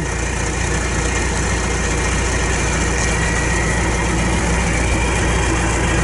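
John Deere 310 backhoe's diesel engine running steadily with an even low hum.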